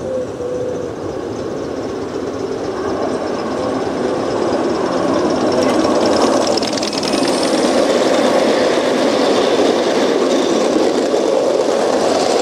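Gauge 1 garden-railway train running on the track, its wheels rumbling and rattling over the rails. The sound grows steadily louder over the first half and stays loud as the coaches pass close by.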